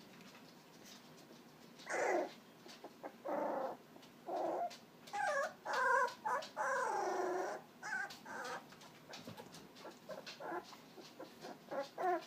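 Puppies whimpering in a string of short, high cries that bend in pitch. The cries are loudest in the middle and grow fainter and briefer near the end.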